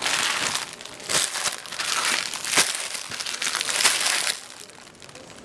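Plastic packaging being crumpled and handled: a dense crinkling rustle with a few sharper crackles, dying away about four seconds in.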